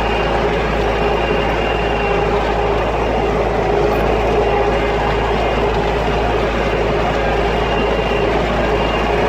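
MTZ-82 tractor's four-cylinder diesel engine running steadily under way, heard from inside the cab as a constant drone and rumble.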